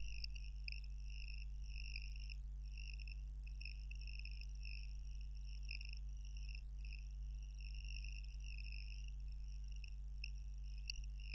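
Faint, continuous high-pitched insect trilling, a pulsing chirp like crickets, over a steady low electrical hum.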